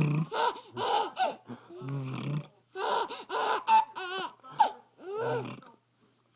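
A baby laughing in repeated short bursts, mixed with silly warbling noises made to amuse him, one with a fast wobble about four seconds in.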